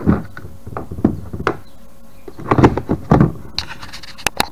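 Hard plastic kayak parts being handled: a string of short knocks and clunks, loudest in a cluster about halfway through, then two sharp clicks near the end.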